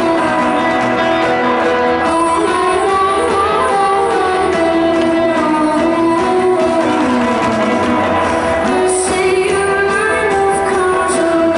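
Live rock band playing through a concert PA, with guitars and drums, and a voice singing over the band.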